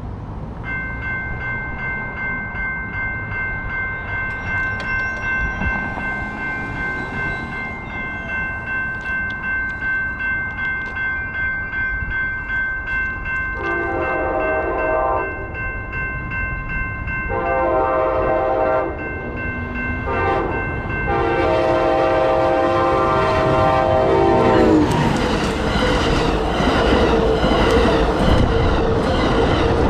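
Railroad grade-crossing bells ringing steadily with a regular pulse. About halfway through, the Amtrak California Pacific Surfliner train's air horn sounds three long blasts, the last one longest, and in the last few seconds the bilevel passenger train passes close by with loud wheel-and-rail noise while the bells keep ringing.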